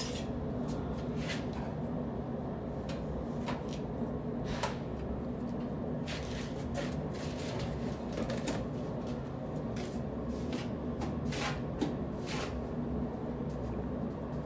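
Trowel scraping and tapping as mortar is spread on glass blocks and the blocks are set into place with plastic connectors: scattered short scrapes and clicks, busiest in the middle, over a steady low hum.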